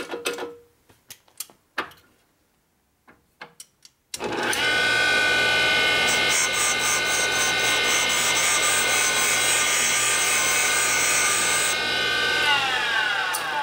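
Valve refacing machine: a few light clicks as the valve is set up, then the motor switches on about four seconds in and runs with a steady whine. The stone grinds the valve face for several seconds with a high rhythmic hiss. The machine is switched off near the end and winds down with a falling whine.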